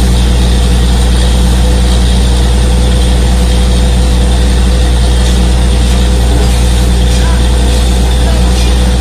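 Truck-mounted DTH drilling rig running: a loud, steady diesel drone with constant higher tones over it.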